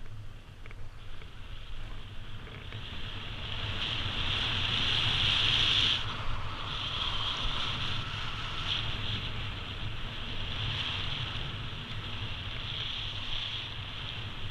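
Skis hissing and scraping over snow during a downhill run, with wind rumbling on the microphone. The rush builds over the first few seconds, peaks, then eases a little and carries on in swells.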